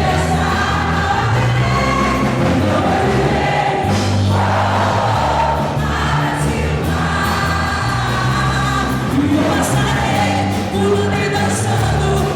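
Music with a group of voices singing together over a steady bass line.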